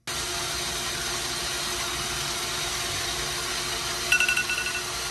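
Pump motor of an RO membrane cleaning machine running steadily as it circulates cleaning chemical through the membrane. About four seconds in, a quick run of short high beeps, the signal that the 15-minute cleaning cycle is finished.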